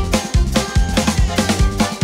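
Drum kit played in a steady, driving groove, with bass drum hits about every half second under snare and cymbal strokes, along with pitched backing music.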